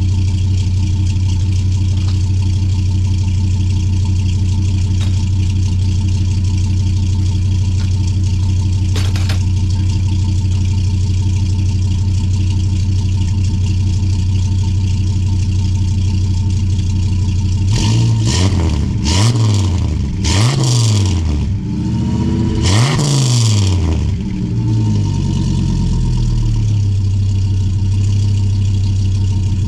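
A 1998 Dodge Ram 2500's 8.0-litre V10 idles through a Gibson cat-back two-into-one exhaust with a nice low tone. About two-thirds of the way in it is revved in four quick blips of the throttle, then settles back to a steady idle.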